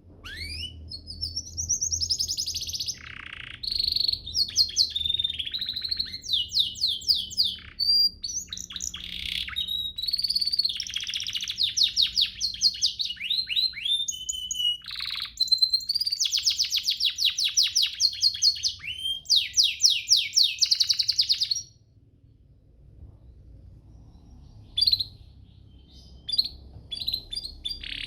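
Domestic canary singing a long, fast song of rapid trills and rolling, sweeping phrases. It stops about three-quarters of the way through, and only a few short chirps follow near the end.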